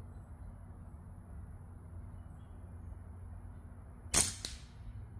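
A single airgun shot about four seconds in, a sharp crack followed by a fainter click a quarter second later; the shot is a miss.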